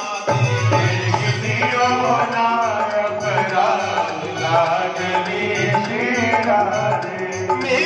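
Live Hindi devotional bhajan: a man singing into a microphone over a hand-drum rhythm and melodic accompaniment.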